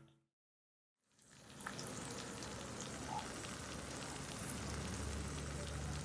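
Eggs frying in oil in a small cast-iron pan: a steady sizzle that fades in after about a second of silence.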